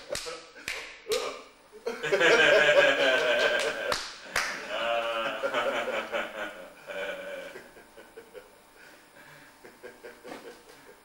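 A few sharp smacks in the first second, then men's voices laughing and exclaiming without clear words, loudest about two to four seconds in and fading after about seven seconds.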